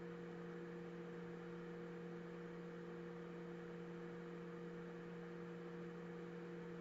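A steady low hum of a few fixed tones over a faint hiss: background room tone.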